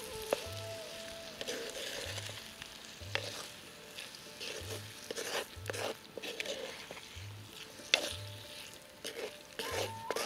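Okra and egg curry sizzling in a clay pot while a spoon stirs it, with frequent short knocks and scrapes of the spoon against the pot. Background music with a steady low beat runs under it.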